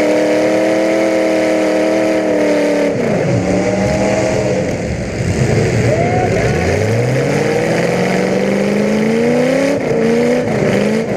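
Demolition derby car engines revving hard. The pitch falls sharply about three seconds in, then climbs steadily for several seconds before dipping and rising again near the end.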